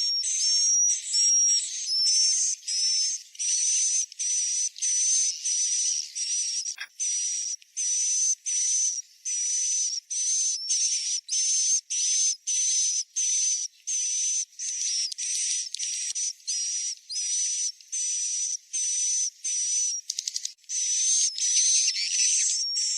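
Swiftlet calls played as a roosting lure track: a steady run of short, high, buzzy chirps and trills, a little under two a second, with a single click about seven seconds in. It is a 'suara inap' sound for luring swiftlets to roost in a new or empty swiftlet house.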